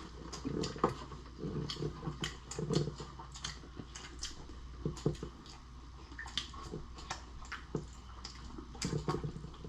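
Wet chewing and lip-smacking of someone eating saucy lobster and shrimp: an irregular run of sharp smacks and clicks over soft chewing.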